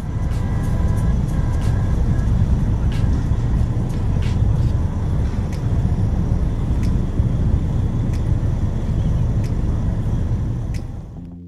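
Loud, steady low rumble of a running engine, which stops abruptly about a second before the end.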